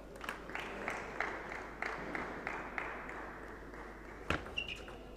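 Plastic table tennis ball bounced repeatedly, about three light pocks a second, as the server readies himself. About four seconds in comes a sharper single pock of the ball being struck, then a short squeak of a shoe sole on the court floor.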